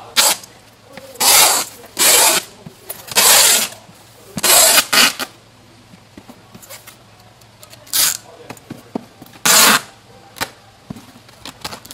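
Packing tape run off a handheld tape dispenser in about eight short, loud ripping strokes, sealing the lid of a styrofoam box.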